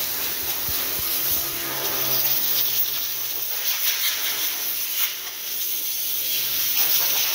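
Steady hiss of a car-wash hose spraying.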